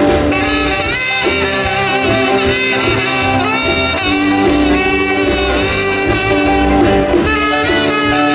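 Live band playing an instrumental stretch of a doo-wop rock 'n' roll number: a saxophone carries the melody over bass, guitar and drums.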